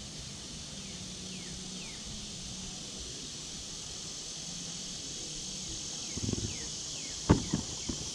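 Outdoor ambience: a steady high insect chorus with a few short falling bird chirps. Near the end there is a rustle and one sharp knock as a boxed toy truck is handled and picked up.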